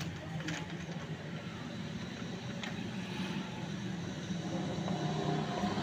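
A steady low rumble of background noise, with a couple of faint clicks.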